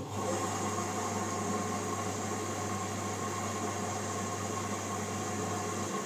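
LG Direct Drive front-loading washing machine with its drum at rest, giving a steady electric hum with a rushing noise over it; the hum switches on abruptly and cuts off after about six seconds.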